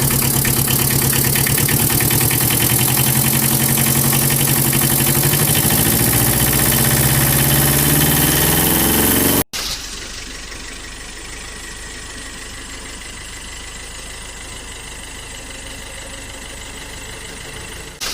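An engine running with a rapid, even chugging beat, its pitch sagging slightly. About nine and a half seconds in it cuts off abruptly and gives way to a quieter, steady engine running.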